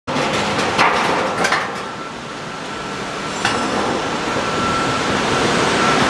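Hydraulic roof-sheet crimp-curving roll forming machine running, the corrugated steel sheet clattering as it is crimped and fed out. There are sharp metallic clanks about a second in, again half a second later and once more about halfway through, over steady machine noise with a faint high whine.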